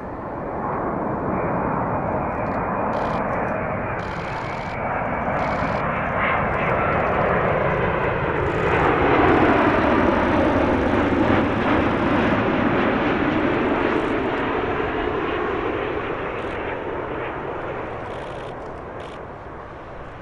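Boeing 787-9 airliner's Rolls-Royce Trent 1000 turbofan engines on landing approach. The jet noise swells as the plane passes close, is loudest about halfway through, drops in pitch as it goes by, then fades.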